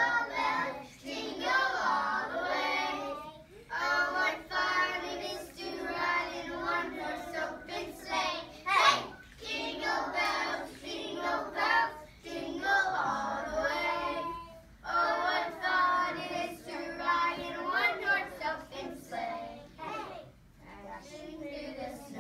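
A class of kindergarten children singing a song together, in sung phrases with short breaks between them.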